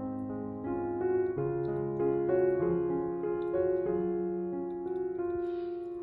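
Background piano music: a gentle melody of sustained notes changing about every half second.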